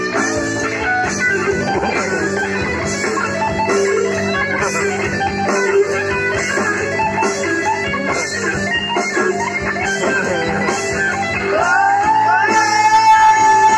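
Instrumental break of a pop song: a guitar solo of quick plucked notes over bass, keyboard and drums with a regular cymbal tick. Near the end a note slides up and is held.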